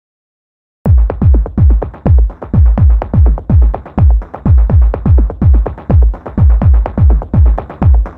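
Electronic background music with a heavy, steady kick-drum beat of about two beats a second, starting suddenly about a second in after silence.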